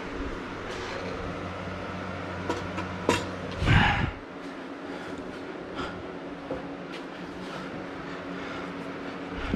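Knocks and clanks of parts being handled while working on a mini four-wheeler, over a steady low hum. The loudest clatter comes about four seconds in, after which the low rumble drops away, and there are a few lighter knocks later.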